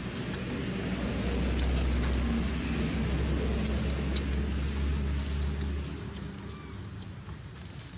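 Low motor-vehicle engine rumble that swells about a second in and fades near six seconds, with a few faint ticks of leaf rustle.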